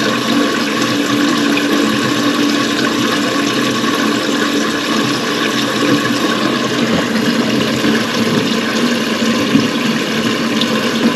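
Water running steadily into a concealed toilet cistern, an even rush that does not change.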